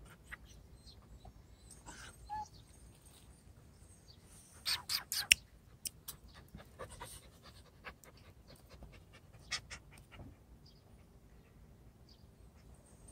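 A white puppy panting. A quick burst of sharp clicks about five seconds in, with scattered lighter clicks over the next few seconds.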